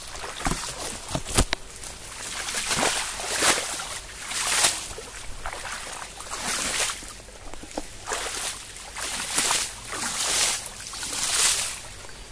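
Feet kicking and splashing water out of a shallow, flowing irrigation channel onto the soil, in irregular splashes about once a second, over the steady trickle of the running water.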